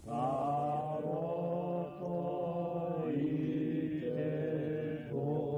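A group of voices chanting together in long, slowly wavering held notes over a steady low drone.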